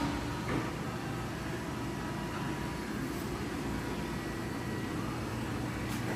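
Steady low hum and hiss of a large workshop's background noise, with no machine cycling.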